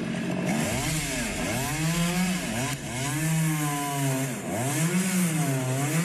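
Two-stroke chainsaw engine running and being revved up and down, its pitch dipping and rising again about once a second.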